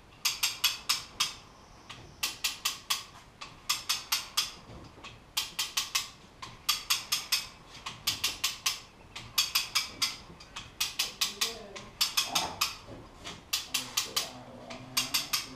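Hand-cranked winch ratchet clicking in quick runs of five or six clicks, one run about every second and a half, as a line is cranked in under load to roll the heavy hull.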